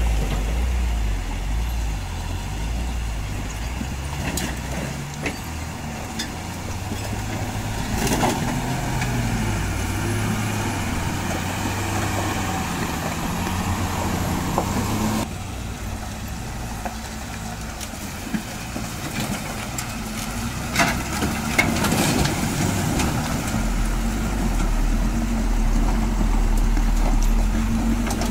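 Heavy goods truck's diesel engine labouring at low speed through deep mud, its pitch rising and falling as the truck crawls past close by. The sound drops suddenly about halfway through, and the engine rumble grows louder again near the end.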